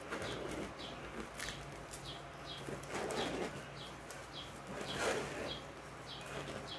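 Plastic cling film being pulled off its roll and wrapped around a bagged piece of dried meat, crinkling most loudly about three and five seconds in. A small bird chirps over it, a short falling note repeated about twice a second.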